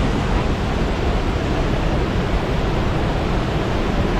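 A loud, steady rushing noise with no distinct events.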